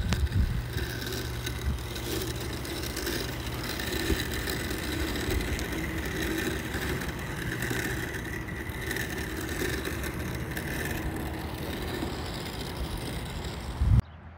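Segway Navimow i105N robot lawn mower running as it drives and cuts grass: a quiet, steady electric motor hum with a faint high whine. It stops abruptly near the end.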